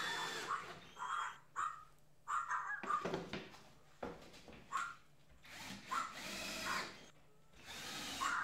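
Cordless drill/driver running in repeated short bursts, its motor pitch rising and falling, while fastening cedar siding onto the doghouse gable.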